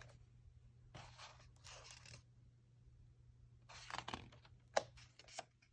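A picture book's paper pages being handled and turned: a few soft swishes, with a sharp tap just before the end.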